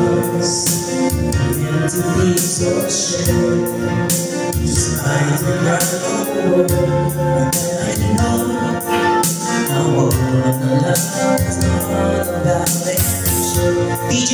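A woman and a man singing a duet into microphones over accompanying music with a steady beat, amplified through the venue's speakers.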